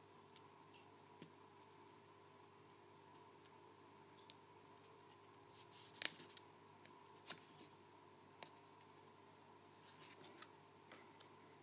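Near silence: faint room tone with a scattering of small clicks and taps from fingers handling a paper index card on a wooden table, the two loudest about six and seven seconds in.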